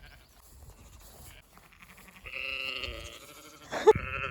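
Sheep bleating twice: one held bleat a little past halfway, then a second, louder one starting sharply near the end.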